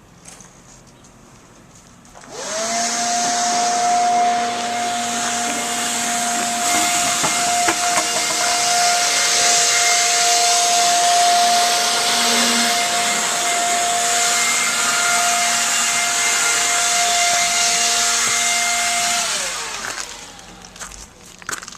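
An electric-motor machine with a rush of air, like a blower, spins up with a rising whine about two seconds in. It runs at a steady, loud pitch, then is switched off near the end and winds down with a falling whine.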